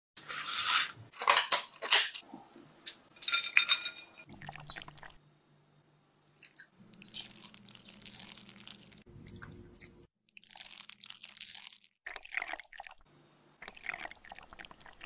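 A sequence of kitchen sounds: several sharp clinks and knocks in the first few seconds, then a wire whisk stirring milk in a saucepan. Near the end a thick milky mixture pours into a silicone mould.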